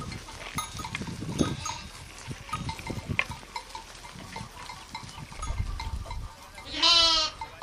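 A flock of grazing sheep and goats with small scattered clicks; near the end one animal gives a single loud, wavering bleat lasting about half a second.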